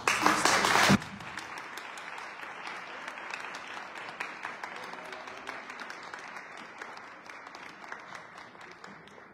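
Audience applauding, loudest in the first second, then steady clapping that slowly dies down near the end.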